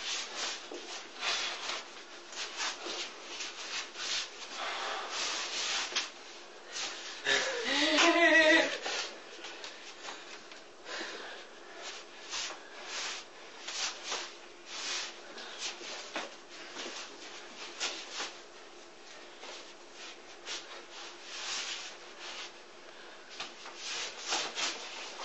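Forearms and hands brushing and slapping in Wing Chun sticky-hands (chi sao) practice: irregular soft taps and rubs throughout. A short vocal sound, such as a grunt or laugh, comes about eight seconds in, over a faint steady hum.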